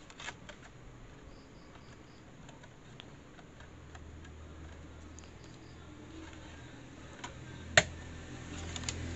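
Small clicks and ticks of a disc being handled and seated on the open tray of a ShuoLe slim USB external DVD drive, with one sharp, loud click just before the end as the disc snaps onto the spindle hub.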